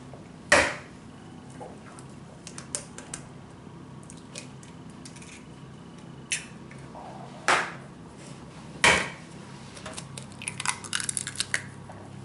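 Eggs being cracked into a plastic mixing bowl: three sharp knocks of shell against the bowl, the last two about a second and a half apart, then a quick run of small crackling clicks as a shell is pulled apart.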